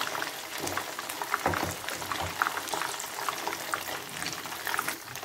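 Batter-coated paneer cubes deep-frying in hot oil in a pan: a steady sizzle dotted with many small crackles and pops.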